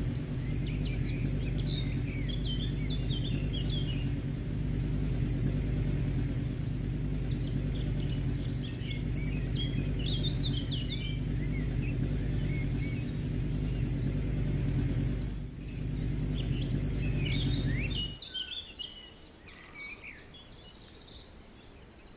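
Birds chirping and calling in short bursts of song over a steady low hum, which cuts off suddenly a few seconds before the end while the chirping goes on.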